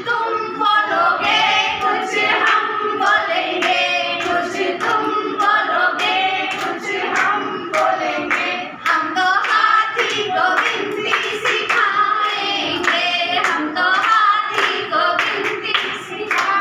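A group of women singing a Hindi counting song together, clapping along in a steady beat.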